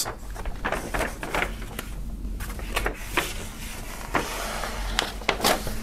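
A large folded A1 paper poster being unfolded by hand, its paper rustling and crackling in irregular sharp crinkles.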